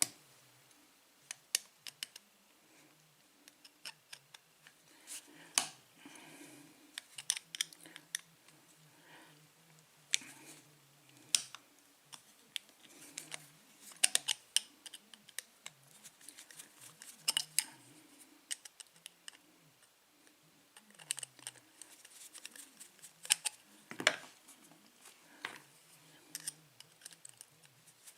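Irregular small metal clicks, taps and short scrapes as a screwdriver and hand tools work screws out of a lock's body.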